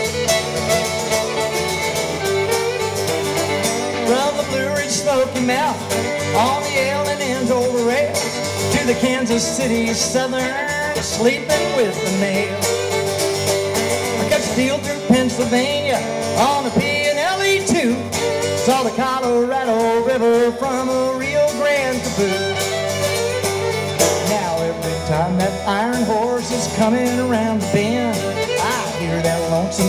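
Fiddle and acoustic guitar playing a country-style train song, the fiddle full of sliding notes over the strummed guitar.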